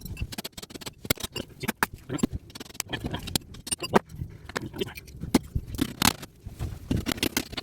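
Irregular metal clinks, clicks and scraping as a small air-conditioner transformer is worked apart by hand for its copper.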